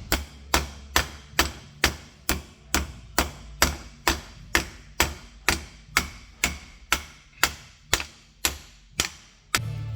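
Hammer blows struck at a steady, even pace of about two a second, each a sharp knock that dies away quickly, in the course of rebuilding a cast-iron Dana 300 transfer case.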